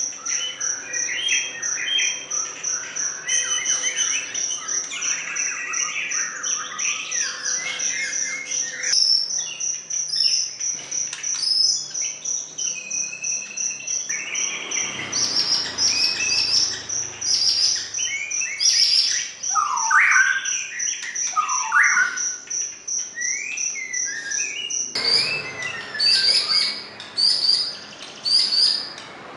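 White-rumped shama (murai batu) singing long, varied whistled phrases with rising and falling notes. A steady, rapidly pulsed high insect trill sounds behind it and stops about 25 seconds in.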